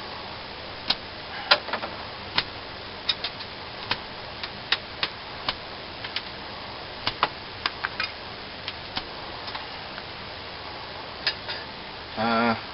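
Knife blade shaving curls off a piece of wood to make a feather stick: a string of short, sharp clicks at irregular intervals, one for each stroke.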